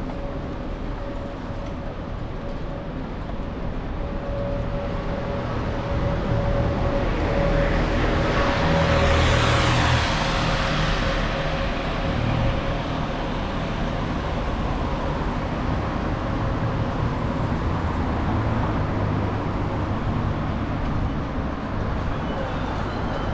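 Road traffic on a busy town street: a steady low rumble of engines with a faint steady hum, and one vehicle passing close, its noise swelling to a peak about nine to ten seconds in and fading a few seconds later.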